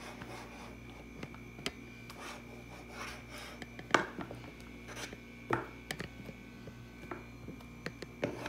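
Irregular scraping and clicking of a utensil against the inside of a plastic bowl as the last of a thick dulce de leite is scraped out, the sharpest stroke about four seconds in.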